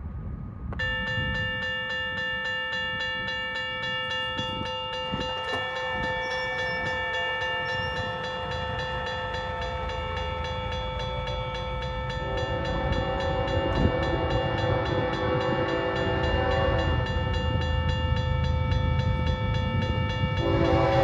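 Railroad crossing bell starts ringing about a second in, a fast, steady repeating ring, as the crossing signals activate for an approaching train. From about twelve seconds in a train horn sounds, louder again near the end, over the growing rumble of the oncoming train.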